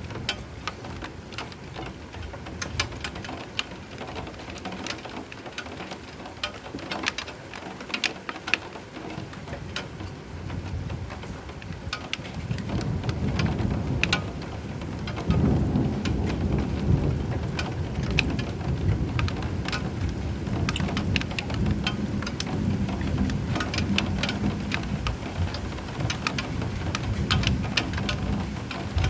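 Steady rain with many sharp drops splattering close by. A low rumble of thunder builds about halfway through and stays under the rain.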